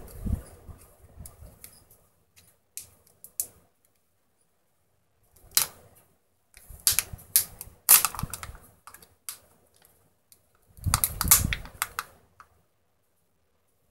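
A Kinder Joy egg's plastic wrapper being peeled and crinkled by hand. It comes in clusters of sharp crackles with short quiet gaps between them, loudest around the middle and again near the end.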